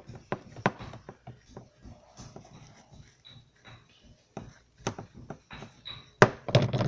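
Handling noise of toy cookware and Play-Doh: a run of light taps and clicks, with a louder clatter of knocks about six seconds in.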